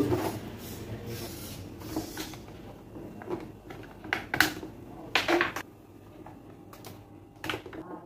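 Plastic clicks and knocks from the motor head of a Mallory pedestal fan as its rear plastic cover is worked loose and pulled off and a screwdriver touches the parts. The knocks are short and scattered, several in all, the loudest about halfway through.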